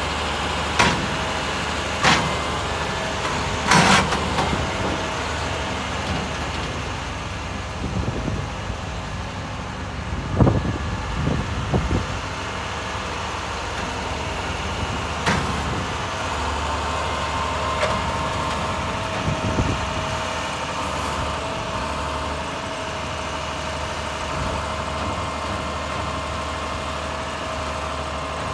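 Grapple truck's engine running steadily to drive the hydraulic grapple boom, with a thin steady whine under the engine. Several sharp metal clanks come in the first few seconds and once more about fifteen seconds in, with a few low thumps around ten seconds in as the boom is worked.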